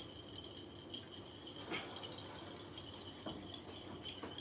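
Quiet kitchen: three or four faint, light clicks and clinks of utensils being handled, over a faint steady high-pitched whine.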